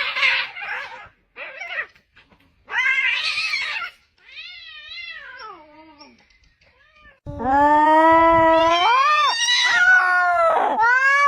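Cats yowling at each other in an aggressive standoff. A series of drawn-out, wavering caterwauls with short gaps between them gives way, about seven seconds in, to one long, loud yowl whose pitch rises and falls.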